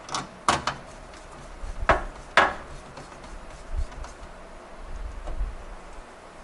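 Sharp clicks and knocks from hardware being handled inside a PC case as the motherboard is screwed in. About five come in the first two and a half seconds, the loudest a pair about half a second apart, followed by a couple of fainter taps.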